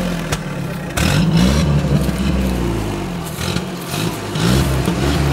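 Soviet four-wheel-drive jeep's engine revving up and down repeatedly under load, straining to drive the tilted vehicle through deep mud.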